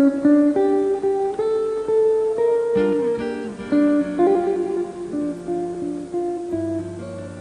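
Electric guitar playing a slow jazz melody in single sustained notes, with a few chords. Low bass notes join near the end.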